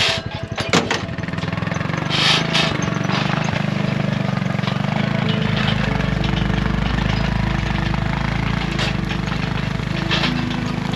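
Side-by-side utility vehicle's engine running as it pulls away towing a round-bale unroller trailer, deepening about five seconds in as it takes up the load. A few knocks and clunks sound in the first few seconds.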